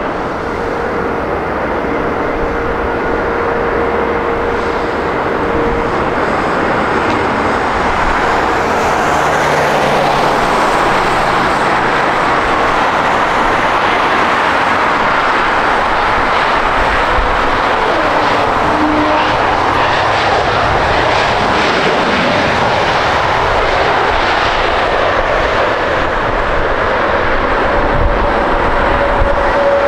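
Jet airliner's engines running loud and steady, a dense rushing noise that holds at the same level throughout.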